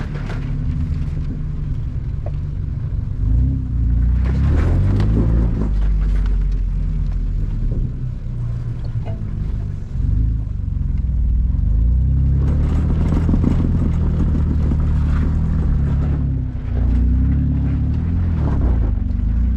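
Jeep Wrangler's engine running at low speed up a rocky off-road climb, its pitch rising and falling with the throttle. Short spells of crunching and scraping from the tyres on rock come and go a few times.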